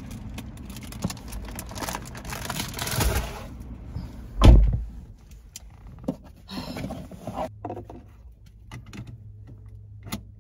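Someone getting into a car: rustling and shuffling, then the car door shuts with a heavy thud about four and a half seconds in. A few small clicks and knocks follow, and a low steady hum sets in about seven and a half seconds in.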